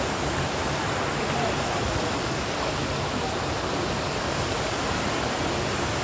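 Steady rushing of the Kapil Dhara waterfall, a small cascade pouring over rock into a pool.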